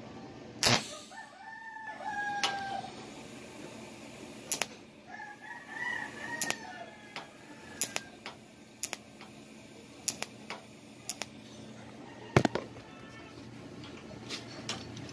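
TIG torch tack-welding a stainless steel corner: a sharp click at each arc start, about ten in all, irregularly spaced. Two long, slightly falling calls, each about a second and a half, are heard in the background, about a second in and about five seconds in.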